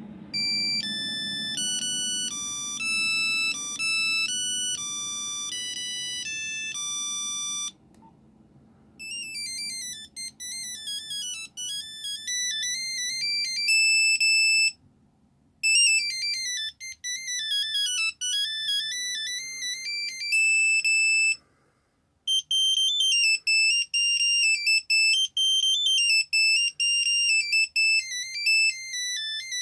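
Nokia 3210 mobile phone playing its built-in monophonic ringtones one after another, as bright beeping single-note melodies. One tune stops about eight seconds in. After a short pause, a fast tune of rising and falling arpeggios plays twice with brief breaks, and a different tune starts a little after twenty seconds.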